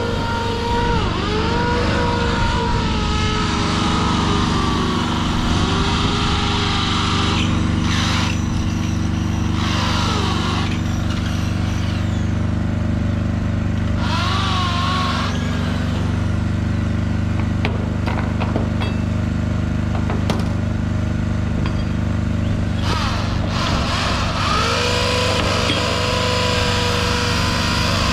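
An engine running steadily at a constant speed, with a few short bursts of hissing noise over it.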